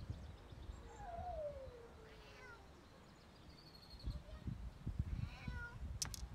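Cat meowing: one long meow about a second in that falls in pitch, then shorter meows near the end, over a low rumble, with a sharp click just before the end.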